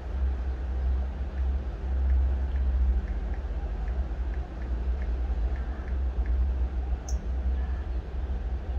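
Steady low background rumble, with a few faint light ticks through the middle and one short high click near the end.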